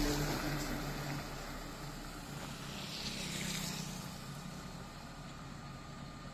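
Road traffic: engine noise from a vehicle that has just passed close by fades away, then the hum of approaching traffic, a truck among it, swells briefly and settles.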